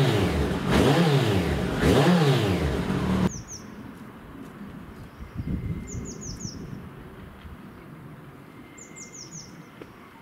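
Kawasaki ZZR1400's inline-four revved repeatedly through Blackwidow end cans fitted with their baffles (dB killers): the pitch rises and falls with each blip. The engine cuts off abruptly about three seconds in, leaving small birds chirping in quick runs of short falling notes over a quiet background.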